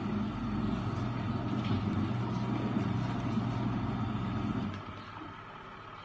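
Maimeite mini portable washing machine running its wash: the motor hums steadily and the pulsator churns the soapy water in the tub. The sound drops away about five seconds in.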